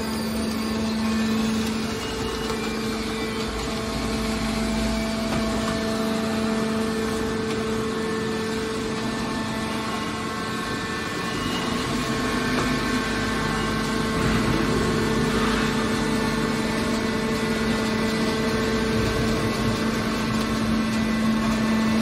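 Hydraulic power unit of a waste steel baler running steadily, a constant hum with a low tone and its octave over machine noise.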